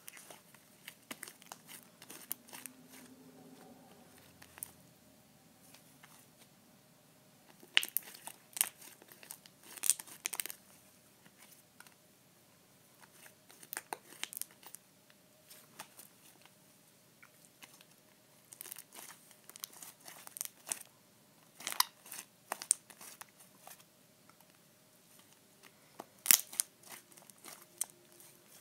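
Homemade purple slime with a few foam beads being squeezed, folded and stretched in the hands, giving clusters of sticky, wet crackles and pops every few seconds.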